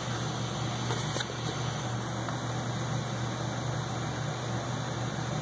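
Steady low hum and hiss of room background noise, with a couple of faint taps about a second in as a cardboard box is turned over in the hands.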